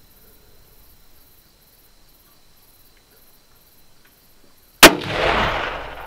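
A single .30-06 rifle shot about five seconds in: one sharp crack followed by a rolling echo that dies away over about a second. It is the shot that drops a large wild boar.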